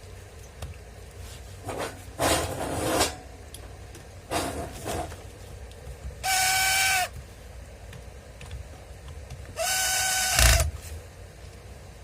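Keyang DG-180FB 7-inch angle grinder briefly switched on twice, each time running for about a second with a steady high whine, after a few short handling noises; a low thump comes near the end of the second run. It is being test-run after an armature replacement and wiring repair.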